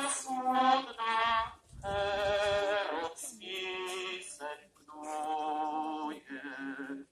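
Voices singing a slow melody in long held notes, each about a second, with short breaks between phrases.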